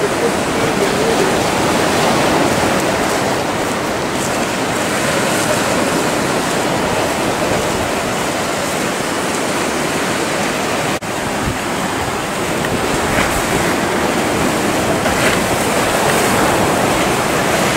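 Rough sea in a harbour entrance channel, a steady rush of choppy waves breaking, with wind on the microphone. The sound drops out for an instant partway through.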